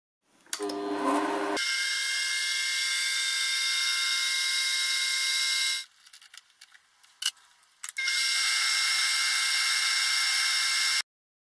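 Small benchtop metal lathe running, a steady high whine over a hiss. It stops about six seconds in, leaving a few light metallic clicks while a cutter is handled at the chuck, then runs again and cuts off abruptly near the end.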